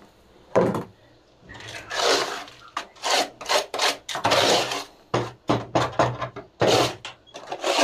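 A metal scraper scraping snake droppings and soiled debris off the floor of a snake enclosure, in a run of short, uneven strokes that start about a second and a half in.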